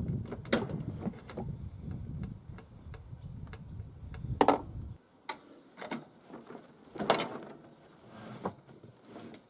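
Scattered clicks and knocks of hand work on a zero-turn mower deck as its pins are pulled out, over a low rumble that stops suddenly about halfway through.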